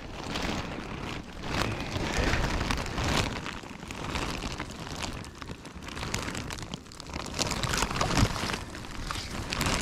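Irregular splashing and rustling noise as a small carp is pulled on a hand line up through a hole in the ice.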